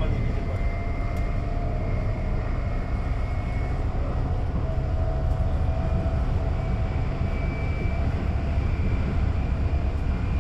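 Bombardier/Alstom ET 422 S-Bahn electric multiple unit running, heard from inside the passenger car: a heavy low rumble from the running gear with a faint steady whine from the electric traction equipment. The pitch of the whine shifts and climbs slightly about halfway through.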